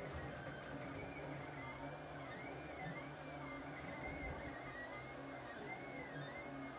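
Lulzbot TAZ 5 3D printer running a print: its stepper motors whine in repeated rising and falling arcs, about two a second, as the print head moves back and forth, over a steady low hum.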